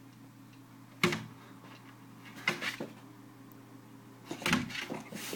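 A few short knocks and scuffs, one about a second in, a pair a little later and a cluster near the end, from a puppy moving and jumping about.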